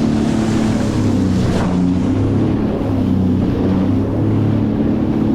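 Sea-Doo GTX 230 personal watercraft engine running steadily under way, its note dipping slightly about two seconds in, with water rushing past the hull and wind on the microphone.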